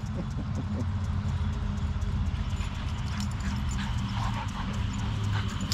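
Two dogs playing and running on grass: quick scuffling steps and light rhythmic thuds over a steady low rumble.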